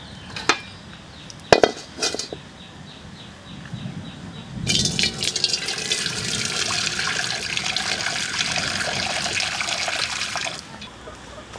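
Water poured in a steady stream into an empty aluminium wok, splashing against the metal and churning in the pan for about six seconds before stopping abruptly. A few sharp clicks come before it in the first two seconds.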